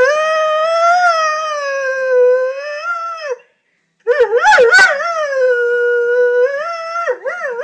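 Lurcher howling: one long howl that fades out about three and a half seconds in, a short breath pause, then another howl that starts with a few quick rising yips, holds steady, and wavers up and down near the end. It is a separation howl, the dog calling for his absent greyhound companion.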